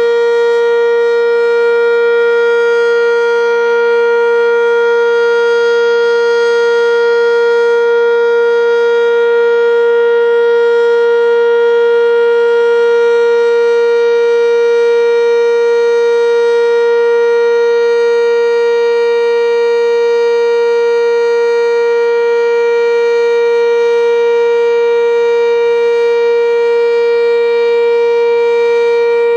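Sentry 10V outdoor warning siren sounding at full speed: one loud, steady tone with a string of overtones, held at the same pitch without rising or falling.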